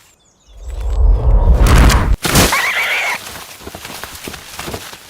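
A deep rush of air builds to a loud whoosh as a goshawk makes a fast, low attack pass, then breaks off sharply. An animal gives a brief wavering high-pitched squeal, followed by quieter rustling and light knocks.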